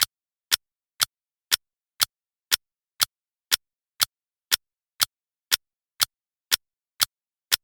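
Countdown timer ticking: short, sharp clicks, evenly spaced at two a second, with silence between them.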